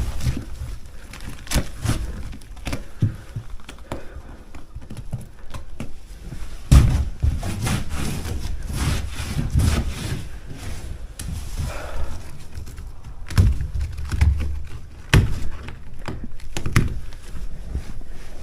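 Irregular wooden thuds and knocks, a few of them loud, with low scraping and rumbling in between, from work on the boat's rotten, wet floor.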